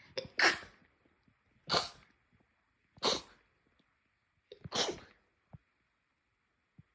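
Four sneezes in a row, each a short sharp burst of breath about a second and a half apart, the last one with a brief catch just before it.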